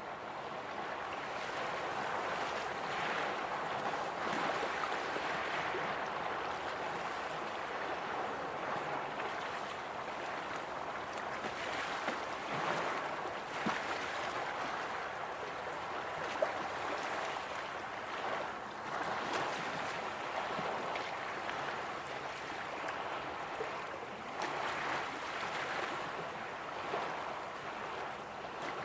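Small waves of the Baltic Sea washing gently onto a sandy, stony shore, the noise of the water swelling and easing every few seconds.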